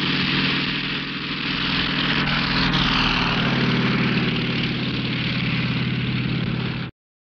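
Piston engine of a propeller dive bomber running at full power on its takeoff run, a steady droning hum under a loud rush of propeller wash. It cuts off abruptly near the end.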